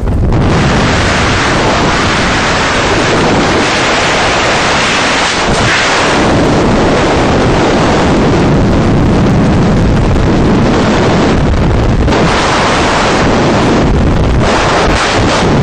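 Loud, steady rush of freefall wind blasting over a skydiver's camera microphone.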